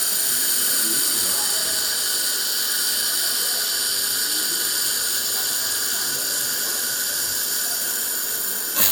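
1500 W handheld laser welder running a weld: a steady high-pitched hiss with several whistle-like tones held throughout, which cuts off with a click near the end.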